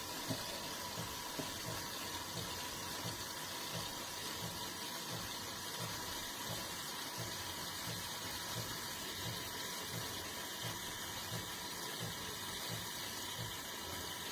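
De'Longhi Rivelia automatic espresso machine running mid-cycle on a latte: a steady hiss with a faint even tone and a regular low pulse about one and a half times a second.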